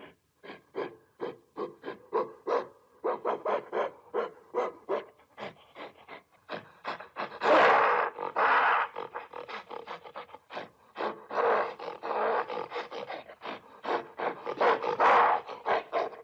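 Gorilla calling: a quick string of short, repeated calls, about three a second, broken by longer, louder calls about eight, twelve and fifteen seconds in.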